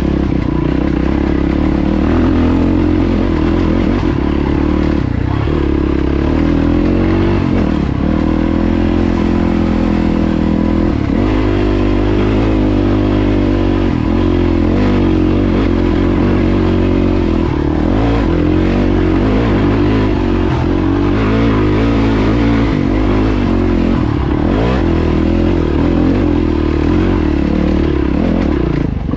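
Yamaha WR450F dirt bike's single-cylinder four-stroke engine pulling along a rocky track, its revs rising and falling with the throttle.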